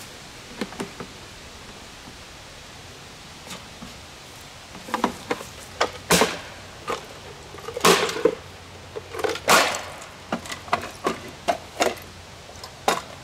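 A golf club striking a small RCA surround-sound satellite speaker cabinet: after a few quiet seconds, a series of sharp cracking hits starting about five seconds in. The three loudest come near the middle, with lighter knocks and clatter between them as the cabinet is beaten apart.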